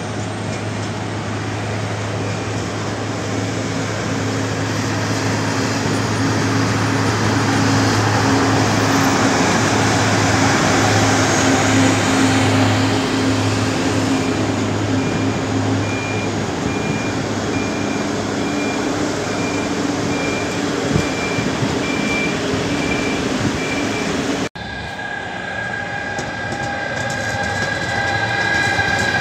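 Diesel engines of yellow track-maintenance machines, a Matisa tamper and a COLMAR rail excavator, running as they shunt, growing louder toward the middle, with a repeating beep over the second half. Near the end it cuts to the steady electric whine of an E.405 electric locomotive.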